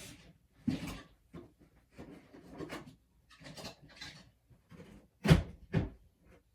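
A string of irregular knocks, rubs and clatters, as of objects being handled, with two sharper knocks close together about five seconds in.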